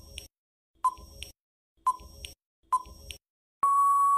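Quiz countdown-timer sound effect: short sharp ticks with a brief ping, about one a second, then a long steady beep near the end that marks time up.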